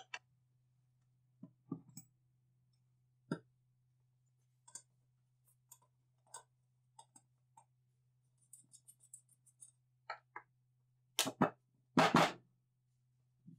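Scattered clicks and knocks of parts and tools being handled on a bench, with a quick run of small light ticks part-way through and two heavier knocks near the end.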